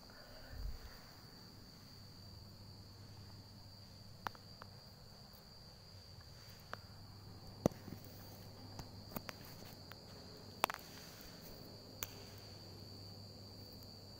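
Faint, steady high-pitched chirring of crickets over a low hum, with a soft low thump about half a second in and a few faint taps and clicks, the sharpest near the middle.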